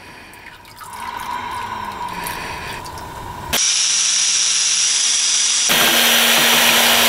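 Cordless drill running steadily, spinning a paddle stirrer through a can of two-part epoxy floor coating. It starts about halfway through.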